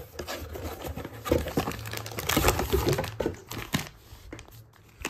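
Packaging of a protein-powder parcel being handled and torn open, with crinkling and ripping, busiest in the middle and dying down near the end.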